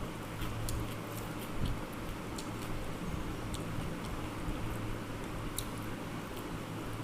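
A person eating rice and egg curry: chewing and small irregular mouth clicks over a steady low hum.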